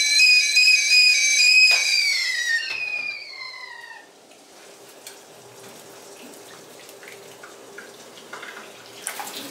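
Stovetop whistling kettle whistling loudly at the boil; after about two and a half seconds the whistle slides down in pitch and dies away as the kettle comes off the gas burner. Boiling water is then poured from the kettle into a stainless-steel sink, a faint steady splashing.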